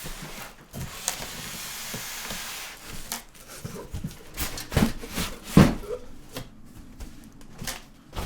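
A Corsair 230T PC case being slid out of its cardboard box and styrofoam packing: a couple of seconds of rubbing and scraping, then several knocks and thumps, the loudest about five and a half seconds in.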